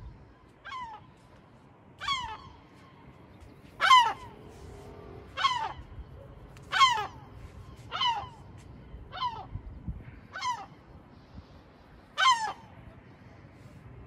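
Gull giving about nine harsh calls in a row, each one dropping in pitch, spaced a second or two apart. These are the alarm calls of a gull guarding its nest against intruders.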